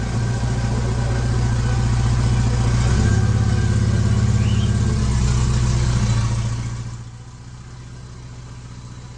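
A car engine running loud and steady, then fading away about seven seconds in.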